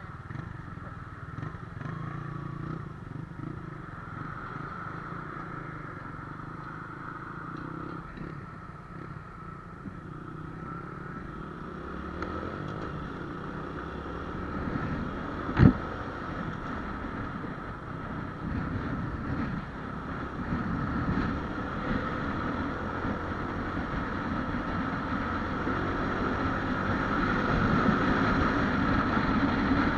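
Honda Wave 125X motorcycle's single-cylinder four-stroke engine running on its stock exhaust while riding, with road and wind noise. A single sharp knock about halfway through, and the engine grows louder toward the end.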